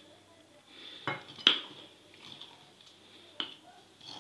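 A few sharp clinks of a spoon and bowls knocking against a ceramic dish while spices are added to flour. There are four clinks; the loudest comes about a second and a half in.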